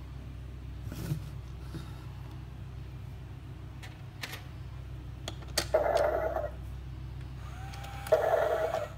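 A plastic Godzilla coin bank handled and a coin set on its tray: scattered light clicks and taps, then two short, louder rasping noises, about six and eight seconds in.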